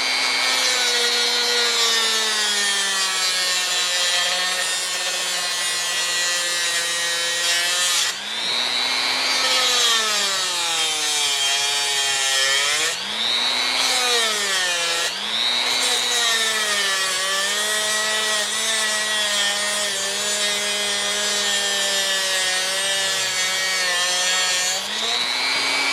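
Small high-speed power cutting tool whining continuously as it cuts through a 3/16-inch steel flex drive cable. The motor's pitch sags several times as it bites into the cable and bogs, and it climbs back up near the end as the load comes off.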